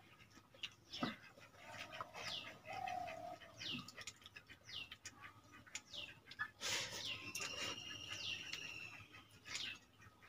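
Birds chirping over and over, each call a short high note sliding downward, about once every second or so. Near two-thirds of the way through there is one longer, held whistling call. Soft clicks and clinks come from fingers working water rice in steel bowls.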